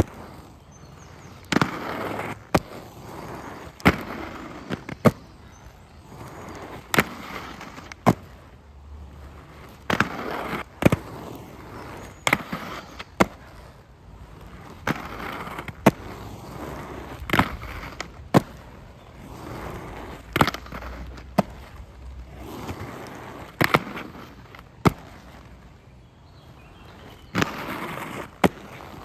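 Aggressive inline skate wheels rolling on concrete, with sharp clacks every second or two as the skates land on, grind along and drop off a concrete ledge.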